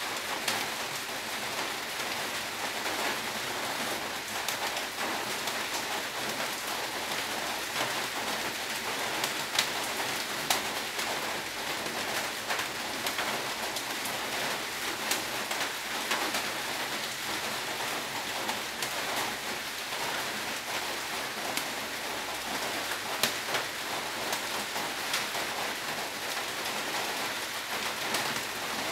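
Aluminium moka pot brewing on a gas burner: a steady crackling hiss with many scattered sharp pops as coffee is forced up the central spout and spatters into the upper chamber.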